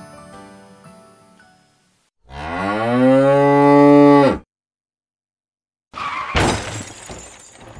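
Music fades out, and after a short silence comes one long, loud moo lasting about two seconds, its pitch rising and then dropping away at the end. About six seconds in, car noise starts, with a few knocks.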